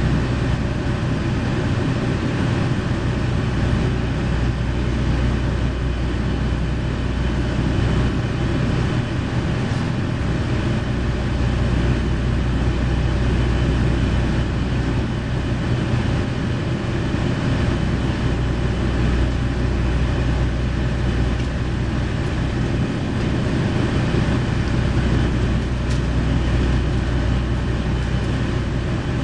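JR Shikoku KiHa 40 series diesel railcar standing with its diesel engine idling, a steady low hum heard inside the passenger cabin.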